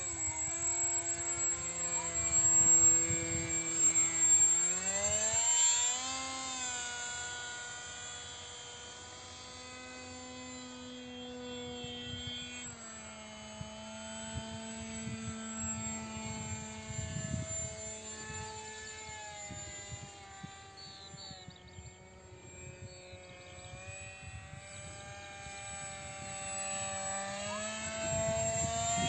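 Electric RC model jet in flight: a 2217 2200kV brushless motor spinning a 6×5.3-inch pusher propeller makes a steady whine with several overtones. Its pitch rises and falls with throttle changes. It is loudest in the first few seconds and grows louder again near the end as the model makes a low pass.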